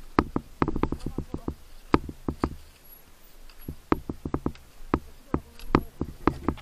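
Irregular knocks and clunks as a motorcycle jolts slowly over a rough, overgrown dirt trail, several sharp knocks a second in uneven clusters.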